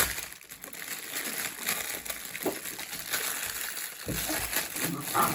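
Irregular soft clicks and crinkling from a silicone pop-it fidget toy being handled and pressed.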